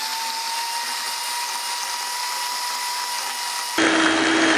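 Electric hand mixer running steadily with a constant whine, its beaters whirring through thick cream cheese batter. Near the end the sound jumps louder with a lower hum.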